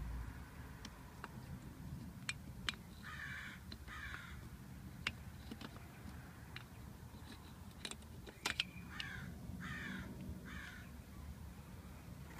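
A crow cawing: two caws about three seconds in, then three more about nine seconds in. Between them come sharp light clicks of small metal alternator parts being handled.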